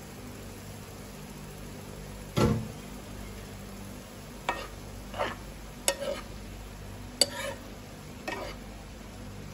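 The glass lid is set down with one heavy clunk about two and a half seconds in, then a utensil knocks and scrapes against a nonstick frying pan several times as the seafood in sauce is stirred, over a low steady hum.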